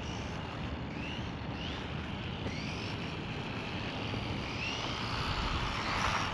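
Mini RC truck with a Hobbywing 2435 4500 KV brushless motor on a 2S battery driving on asphalt: a steady hiss of tyres and drivetrain, with several short rising whines as the motor is throttled up. It runs smoothly.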